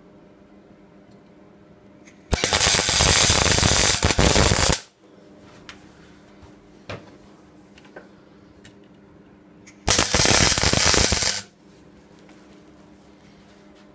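MIG welder arc crackling as two short welds are laid on a steel turbo exhaust manifold pipe: the first starts about two seconds in and runs about two and a half seconds, the second starts about ten seconds in and runs about a second and a half.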